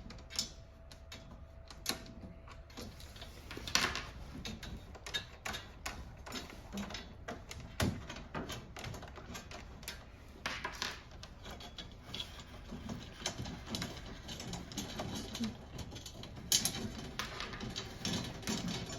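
Fixing screws being unscrewed from a dehumidifier's filter cover: irregular clicks, ticks and small knocks of the screwdriver and screws against the housing, with a few sharper knocks scattered through.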